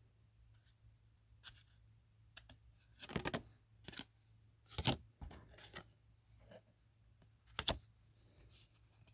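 Trading cards and their plastic packaging being handled: a series of short rustles, slides and clicks at irregular intervals, the loudest about five seconds in and near the end.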